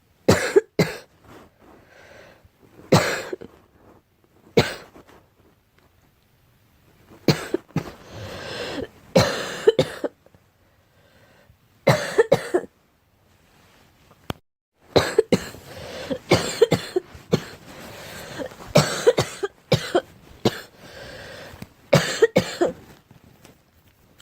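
A girl coughing in repeated fits: short sharp coughs, singly or in runs of several, with pauses of a second or two between the fits.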